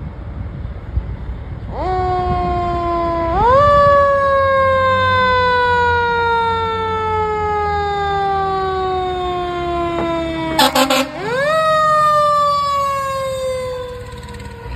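A 2005 American LaFrance Eagle fire engine's siren winds up about two seconds in, then falls slowly in pitch. About ten and a half seconds in, a quick run of short air horn blasts sounds, and the siren then winds up again and slowly falls.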